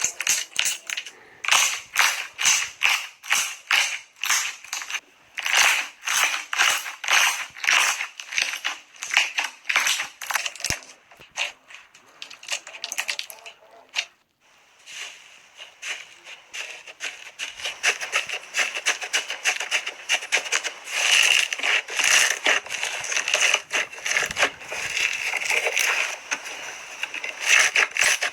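Slime being squeezed and pressed by hand, giving rapid crackling pops and clicks, which pause briefly about halfway through and then return as a denser crackle.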